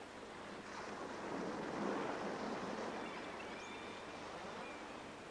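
Sea waves washing against an exposed rocky shore: a swell of surf noise that rises to a peak about two seconds in, then slowly fades.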